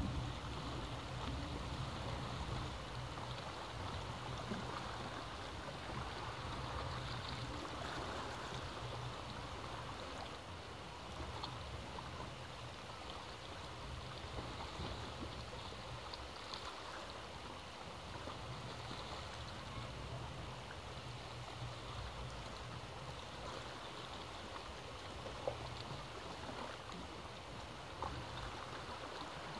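Sea waves washing at the foot of a sea cliff: a steady wash of moving water, with a couple of brief sharp ticks near the end.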